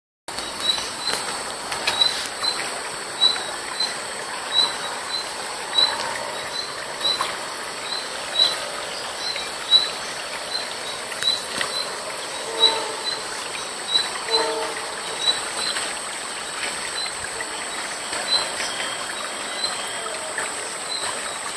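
Knocks and rattles of a plastic laundry basket being handled, the loudest sounds, over a short high chirp of an insect repeating about twice a second.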